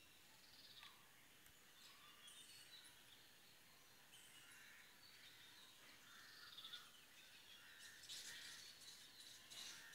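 Faint outdoor background hiss with distant birds calling in short, scattered chirps, a little busier and louder near the end.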